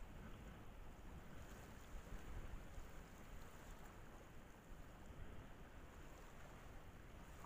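Faint, even wind noise on the microphone with light lapping of calm sea water; no distinct events.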